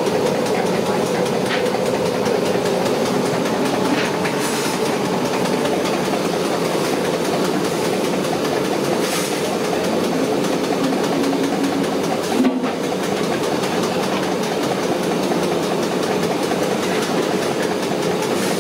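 Sweet vadas deep-frying in a large kadai of hot oil: a steady, dense crackling sizzle. A brief knock about two-thirds of the way through.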